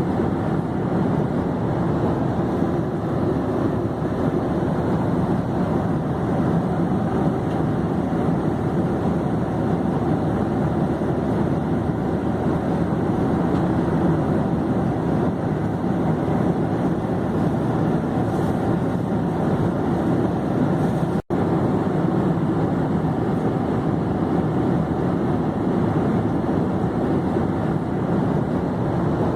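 Steady, even engine and air noise of an airplane in flight, mostly low and mid in pitch. It cuts out for an instant about two-thirds of the way through.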